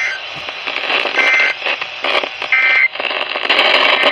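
Emergency Alert System end-of-message data bursts over a radio broadcast: short buzzy two-tone digital squawks, two of them about a second and a third apart, under a steady wash of radio static and hiss.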